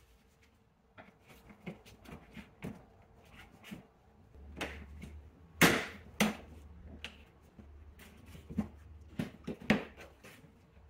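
Plastic wheel-arch liner and bumper edge being pried and pulled apart with a plastic trim tool: a scattered series of clicks and knocks as the plastic flexes and clips let go, the loudest a sharp snap about halfway through.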